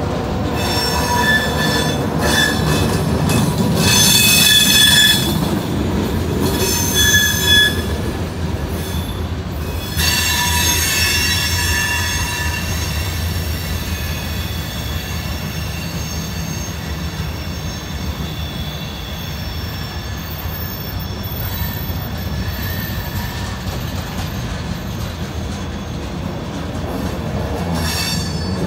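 Freight train cars rolling through a grade crossing: a steady low rumble of wheels on rail, with high-pitched wheel squeal that comes and goes in the first several seconds, swells again about ten seconds in, then fades to the rumble.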